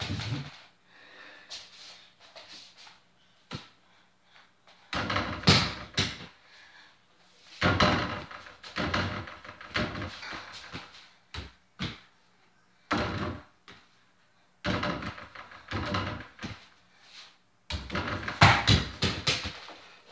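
A mini basketball thumping against an over-the-door hoop's backboard and rim, rattling the door it hangs on, and bouncing on the floor. It comes in several bursts, each a second or a few long, with quieter gaps between.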